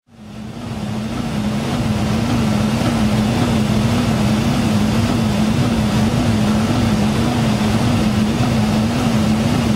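Aircraft interior noise in flight, heard from inside the aircraft: a steady rush of air with a low hum that wavers regularly about twice a second. It fades in over the first two seconds.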